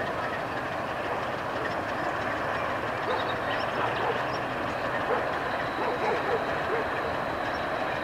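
Electroputere LDE2100 (060-DA) diesel-electric locomotive approaching under full power, its Sulzer diesel engine giving a steady, distant running noise. A thin, high steady whine joins about halfway through.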